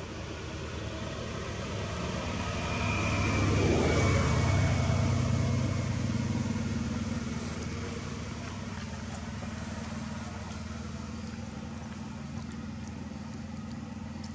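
A motor vehicle passing by, its noise building to a peak about four seconds in and then slowly fading, over a steady low engine hum.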